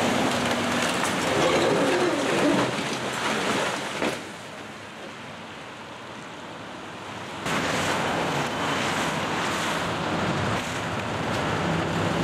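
Traffic passing on a wet street: tyres hissing on the rain-soaked road, with a steady engine hum underneath. The sound falls away abruptly about four seconds in and comes back just as suddenly about three seconds later.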